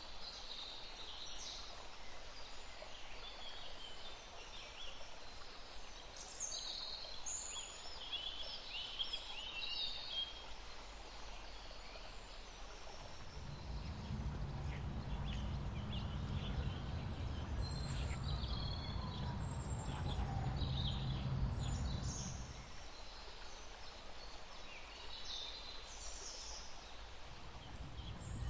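Birds calling outdoors in short, high chirps scattered throughout. A low rumble swells in for about nine seconds midway, then drops away.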